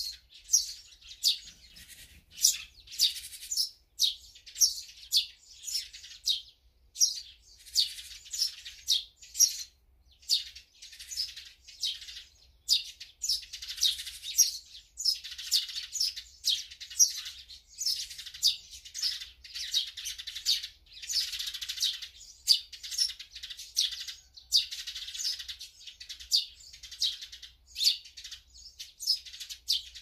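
Small songbirds chirping: a steady run of short, high chirps, one or two a second, with busier stretches through the middle.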